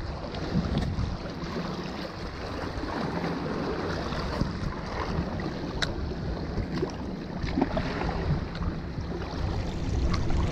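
Wind buffeting the microphone over sea water washing against breakwater rocks, with a few faint clicks.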